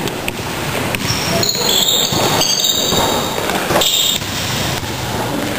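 Basketball dribbled on a wooden gym floor, with sneakers squeaking in short high-pitched chirps a couple of seconds in.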